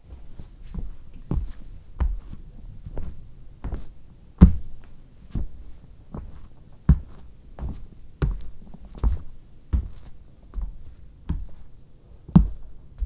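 A steady series of dull, heavy thuds, about one every three quarters of a second, some with a sharp knock on top; the loudest comes about four and a half seconds in.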